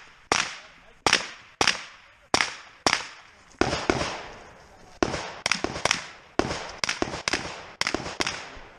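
Rifle firing a rapid string of about fifteen shots, each with a short echoing tail. The shots come about two every second at first, pause for just over a second in the middle, then speed up toward the end.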